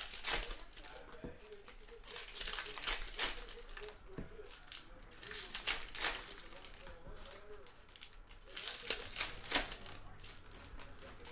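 Plastic wrappers of trading-card packs being torn open and crinkled by hand, in repeated irregular crinkles, some sharper and louder than others.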